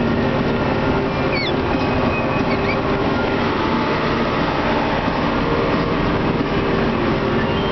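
Deutz-Fahr tractor's diesel engine running steadily under way, heard from inside the cab with the side window open, together with road and drivetrain noise.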